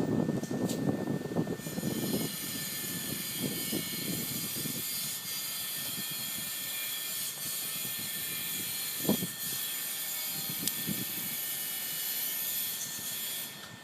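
BioLite CampStove running on burning wood pellets: its built-in fan blowing air into the fire, a steady rushing whir with a thin constant whine. Low crackling in the first couple of seconds and now and then after, with one sharp click about nine seconds in.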